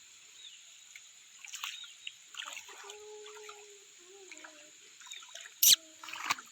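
Faint water trickling and splashing at the edge of a quarry pond, under a steady high-pitched drone. A single sharp splash or knock about five and a half seconds in is the loudest sound.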